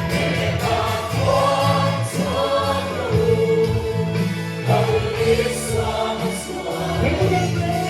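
A group singing a hymn-like song in chorus over amplified instrumental accompaniment with a steady bass line.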